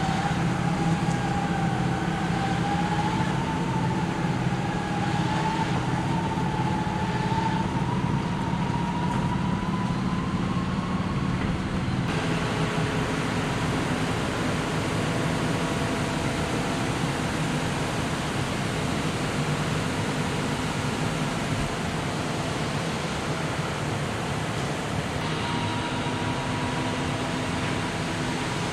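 John Deere 6155R tractor running steadily, its engine drone carrying a whine that climbs slowly in pitch over the first ten seconds or so. About twelve seconds in the sound changes abruptly to a steady hum with level tones.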